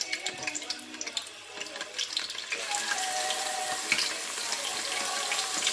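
Chicken pieces sizzling and crackling in hot oil in an electric deep fryer. The sputtering grows into a louder, denser sizzle about two and a half seconds in.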